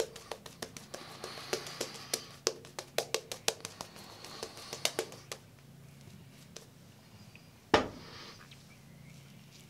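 A shaving brush working lather on the face: quick wet clicks and swishes, several a second, that thin out after about five seconds, with one sharp knock near the end.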